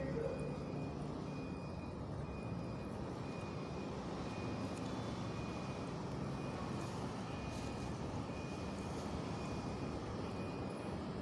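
Steady low background rumble with a faint high beep repeating a little more than once a second.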